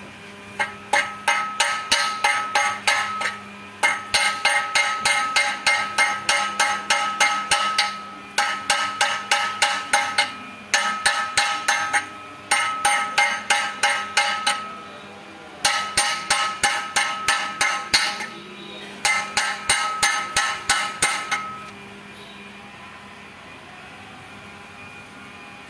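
Hammer striking metal in quick rhythmic runs of blows, about four a second, each blow ringing. The runs stop and restart several times, and the hammering ends about 22 seconds in.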